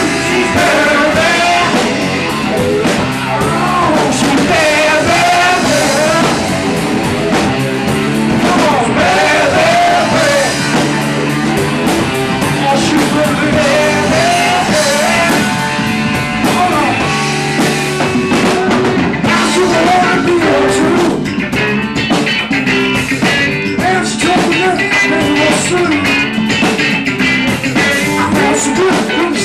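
Live rock and roll band: a man singing into a microphone over electric guitar and drums. The singing stops about twenty seconds in while the band plays on.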